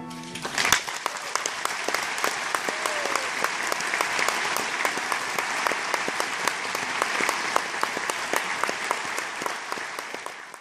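A concert hall audience applauding steadily as the big band's final chord dies away in the first moment; the clapping fades out near the end.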